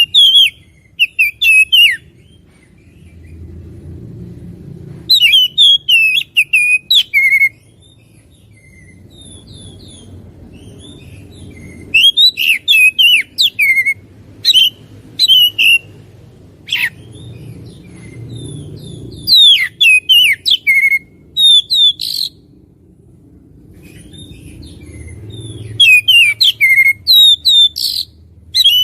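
Oriental magpie-robin singing loudly in bouts of rapid, varied whistled phrases with sliding notes, pausing for a few seconds between bouts. A faint low rumble runs under the pauses.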